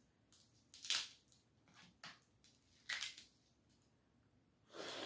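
Cooked blue crab shell being cracked and pulled apart by hand: short crackling snaps, three louder ones about a second in, near three seconds and near the end, with faint ticks between.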